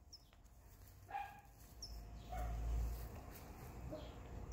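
Dog giving three short whining yips, about a second apart, over a low rumble that swells near the middle.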